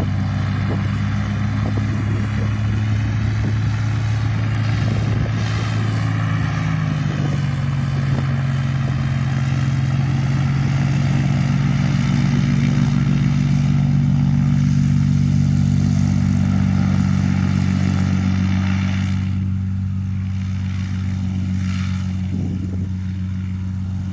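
Floatplane's engine and propeller running at low power while taxiing, a steady drone. The pitch steps up slightly about seven seconds in, and the hiss above it thins out about nineteen seconds in.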